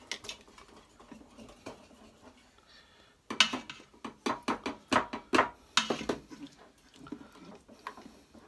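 Metal kitchen tongs clacking and scraping against the stainless steel inner pot of an Instant Pot as pieces of roast are lifted out. A few light clicks at first, then a quick run of about a dozen sharp clacks from about three to six seconds in, then a few quieter taps.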